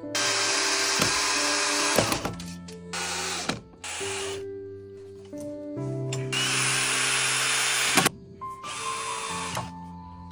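Electric power tool, a drill by its sound, running in several bursts: one of about two seconds at the start, two short ones, another of about two seconds past the middle and a brief one near the end. Background music plays underneath.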